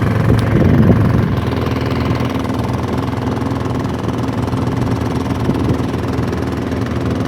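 Fishing boat's engine running at a steady speed, an even drone.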